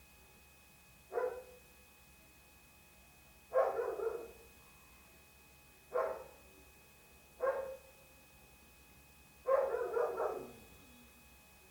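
A dog barking repeatedly: five single barks or short runs of barks, about two seconds apart, each with a brief echoing tail.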